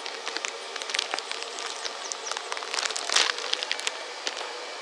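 Handling noise: irregular rustling and crackling, with sharp clicks scattered through it over a steady hiss.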